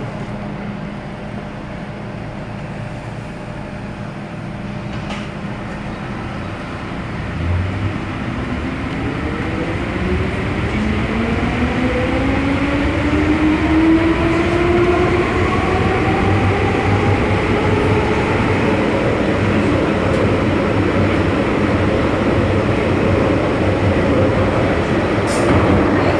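MTR M-Train metro car standing with a steady hum, then pulling away about eight seconds in: several traction-motor whine tones climb in pitch together as it gathers speed, over growing rail running noise.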